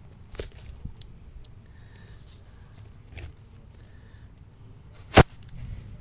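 A few soft clicks and knocks, then one loud sharp snap about five seconds in, over a low rumble.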